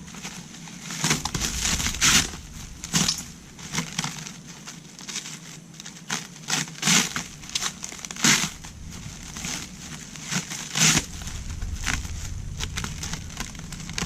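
Parts being handled by hand: irregular crinkling and rustling with scattered sharp clicks, several of them louder.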